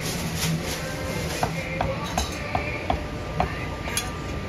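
Metal utensils clinking against pots and bowls at a braised-food stall: a quick run of about six sharp, briefly ringing clinks in the middle, then one more near the end, over a steady background hum.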